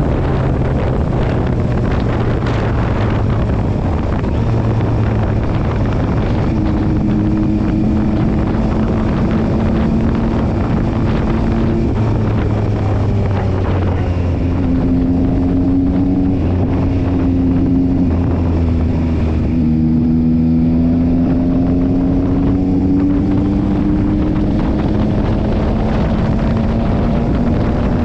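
Yamaha Tracer 9 GT's 890 cc inline three-cylinder engine running under way, heard from the rider's seat with wind noise on the microphone. Its pitch steps up and down several times and rises steadily for a few seconds past the middle.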